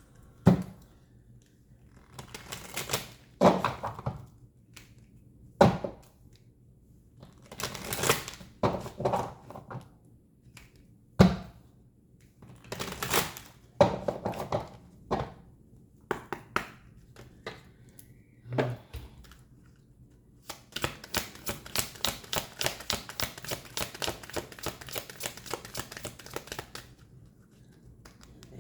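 A deck of oracle cards being handled and shuffled: scattered taps and slaps of the cards at first, then a fast, even run of card flicks, about four a second, for some six seconds near the end.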